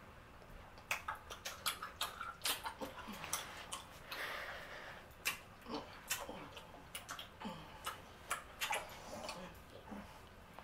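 Two people chewing big mouthfuls of bubble gum: irregular wet clicks and smacks, with a few short low hums from the throat or nose.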